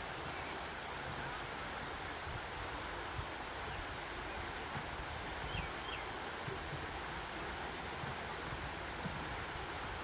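Steady rushing outdoor noise of wind on the microphone, with uneven low buffeting; two faint short chirps about halfway through.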